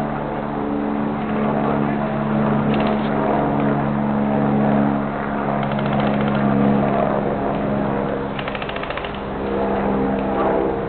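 Three short bursts of fast, evenly spaced clicks from automatic airsoft rifle fire, over a steady low mechanical hum.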